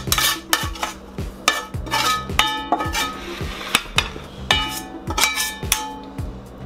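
Metal spatula scraping and clanking against a stainless steel frying pan as cooked vegetables and beans are pushed out onto a tortilla, in a quick series of scrapes and knocks. Music with a steady beat plays underneath.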